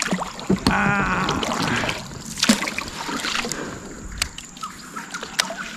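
Fishing kayak being paddled: the paddle splashes in the water and knocks against the hull several times. A short whirr starts about a second in and is the loudest sound.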